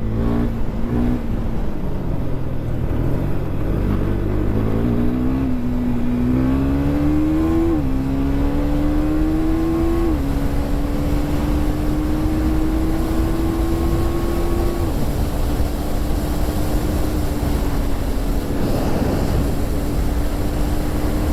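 KTM 390 Duke's single-cylinder engine through its stock exhaust, accelerating hard: the engine note climbs and drops sharply at upshifts about five, eight and ten seconds in, then holds a nearly steady pitch at cruising speed.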